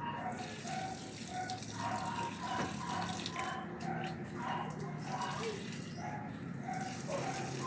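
Water running, with short high blips alternating between two pitches several times a second.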